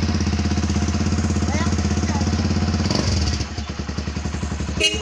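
Kawasaki motorcycle engine running with an even exhaust pulse, dropping to a slower, quieter idle about three seconds in. A horn starts to beep right at the end.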